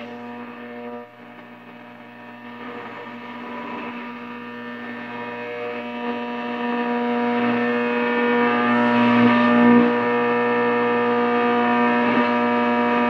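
1934 RCA 128 tube radio being tuned across the dial between stations: a steady pitched buzz with faint static from its loudspeaker, getting louder through the first eight seconds or so.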